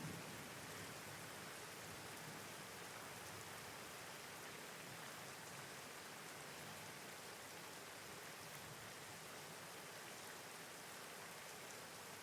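Steady rain falling, an even hiss of drops on surfaces with no thunder.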